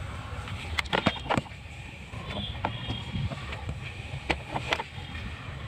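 Scattered plastic clicks and knocks as a car cigarette lighter socket and its wiring connector are handled and pushed into place behind the dashboard, with a cluster about a second in and two more near the end, over a steady low rumble.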